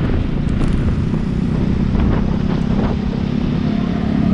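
Motorcycle engine running steadily under way, with wind and road noise, in light city traffic.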